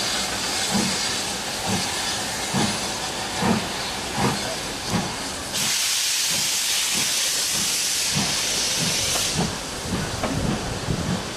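Steam train of a BR Standard Class 4MT tank locomotive and coaches pulling away, with a regular beat that slowly quickens. About five seconds in, a loud hiss of steam starts suddenly, lasts about four seconds, and cuts off.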